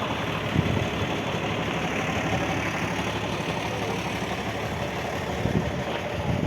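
A vehicle engine running steadily, with a few gusts of wind on the microphone.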